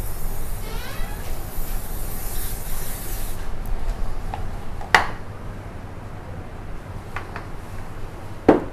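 Aerosol canola oil spray hissing steadily as a tart pan is greased, stopping a little over three seconds in. A sharp knock follows about five seconds in.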